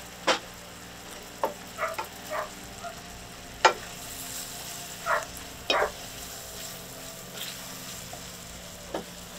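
Diced celery and onion frying in a stainless steel skillet, sizzling steadily as a wooden spatula stirs them. The spatula scrapes and knocks against the pan now and then.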